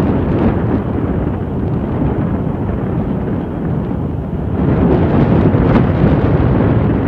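Loud, steady jet engine rumble mixed with wind buffeting the microphone, growing louder about four and a half seconds in.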